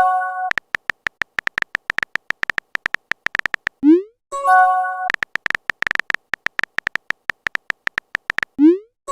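Smartphone keyboard typing sound effect: fast, even tapping clicks. About four seconds in it is broken by a short rising blip and a brief chime of a few steady tones, the message-sent and message-received alert of a texting chat. The tapping then resumes and ends in another rising blip near the end.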